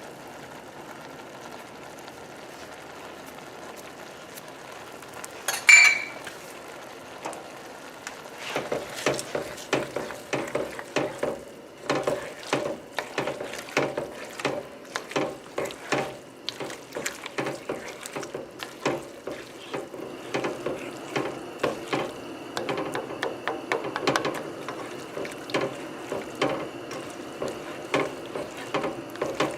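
A pan of linguine simmering in a cream sauce while it is stirred and tossed with a utensil that clicks and scrapes irregularly against the pan. One sharp ringing clink of metal on the pan about six seconds in, and the stirring gets busier from about eight seconds on.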